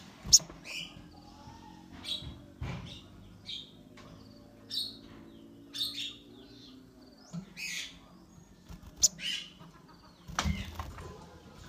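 Caged sogon (a sunbird) giving short, high chirping calls, about one a second, with a few wing flutters and soft thumps as it moves about the cage.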